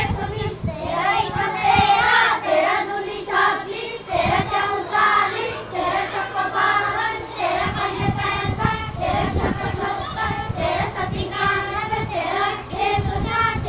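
A group of children singing multiplication tables together in unison, to a Garhwali folk tune.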